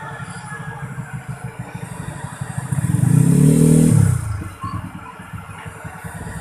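A motor vehicle engine passing close by, rising in pitch and loudness to a peak about three seconds in, then falling away.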